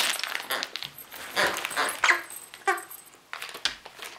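Siberian huskies playing over their toys: a string of short scuffling and rustling noises, with a short dog whine about two and a half seconds in.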